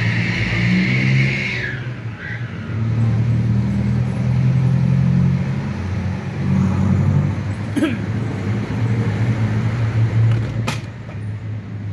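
Motor vehicle engine idling, a steady low hum. Two sharp clicks, about eight seconds in and again near the end, fit a metal tool striking the fan hub.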